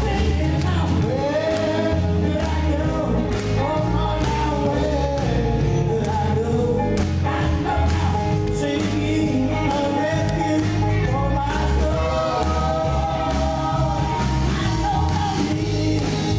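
A live band playing a song: a man singing lead into a microphone over electric and acoustic guitars and an electric bass.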